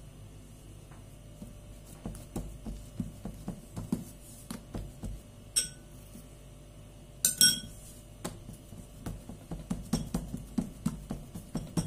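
Hands patting and pressing yeast dough flat on a wooden board, a run of soft dull pats that comes quicker near the end. A metal spoon clinks against a small glass bowl of oil twice, near the middle, the second time loudest.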